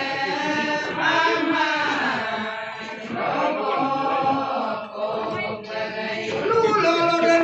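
A group of women singing a ponung, the Adi folk dance-song, together in unison as a chanted, phrase-by-phrase refrain.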